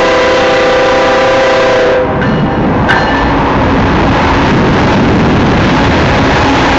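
Diesel locomotive air horn sounding a held chord that cuts off about two seconds in. A loud, steady rushing noise continues after it.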